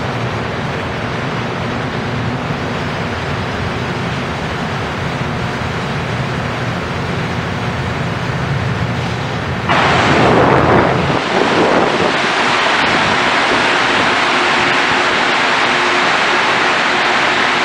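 Rubber-tyred Montreal Metro train noise: a steady low rumble, then about ten seconds in a sudden loud surge and a steady rushing hiss with a faint hum as a train runs past below.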